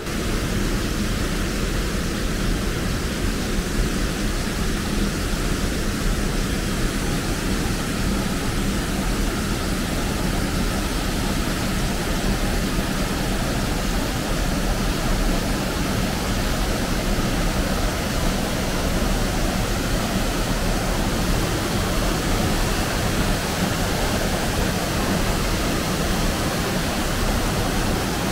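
Fast mountain stream rushing over boulders and a small waterfall: a steady, even rush of water.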